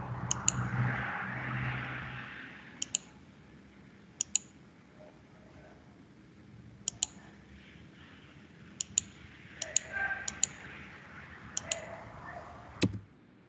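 Computer mouse clicking: about ten separate clicks, each a quick press and release, spaced a second or two apart.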